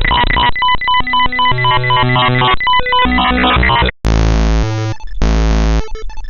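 Harsh, glitchy synthesized electronic sound effects generated by the malware, in the style of bytebeat: buzzy tones that jump in quick, blocky patterns. About four seconds in the sound cuts out for an instant and switches to a different pattern with heavier low tones.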